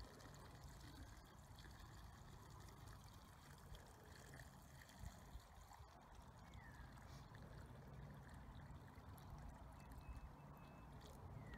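Water pouring from a plastic jerrycan into a hand-augered hole in soil, a faint steady trickle; the hole is being soaked to saturate the soil before a permeability test.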